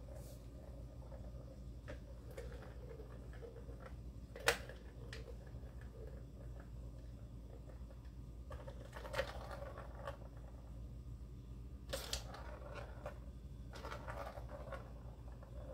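Plastic balls rolling and rattling around the tracks of a tiered cat ball-track toy as a kitten bats at them, with a few sharp plastic clacks, the loudest about four and a half seconds in.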